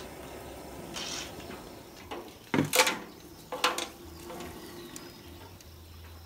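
A few sharp metallic clanks and rattles from a poultry scalder's steel dunking rack and frame as it is handled, the loudest about two and a half seconds in and again a second later.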